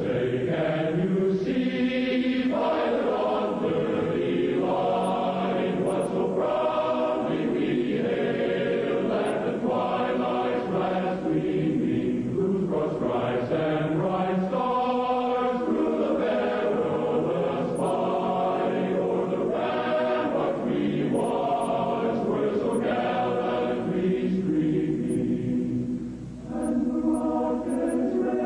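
A choir singing slowly, many voices holding long notes that change every second or two, with a short dip in level near the end.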